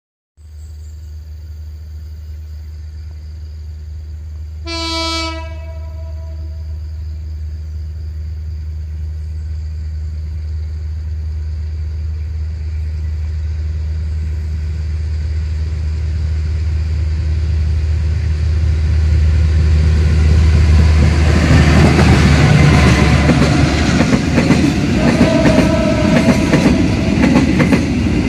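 Diesel locomotive approaching, its low engine drone growing steadily louder, with one short horn blast about five seconds in. In the last several seconds a freight train rolls past close by, a loud rumble and clatter of wagon wheels on the rails.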